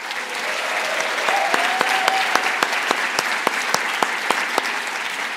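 Large auditorium audience applauding, a dense steady clapping with many sharp individual claps standing out.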